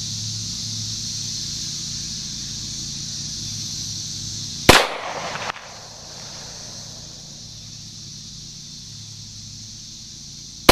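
Two pistol shots from a .40-caliber Springfield XDM 5.25, one about halfway through and one right at the end. Each is a sharp crack followed by a short echo.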